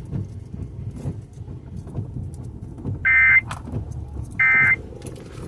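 Emergency Alert System end-of-message data bursts: two short, harsh two-tone digital screeches about a second apart, starting about three seconds in, the SAME code that closes the warning broadcast. A low steady rumble runs underneath.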